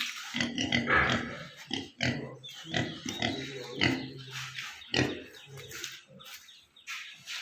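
Yorkshire pigs grunting and squealing in a dense, irregular run of short calls.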